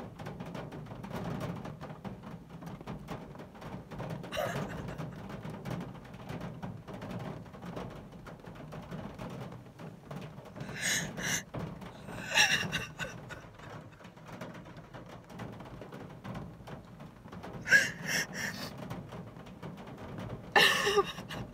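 A woman crying quietly inside a car, with short sobbing catches of breath a few times over the second half, over a steady low hum.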